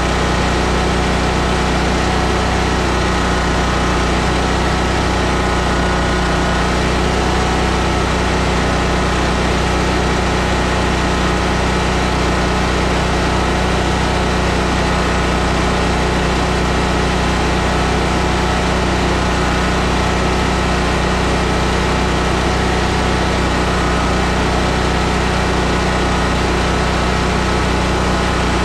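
Toro Z-Master 4000 zero-turn mower engine running steadily while the mower stands parked, with no change in pitch or level.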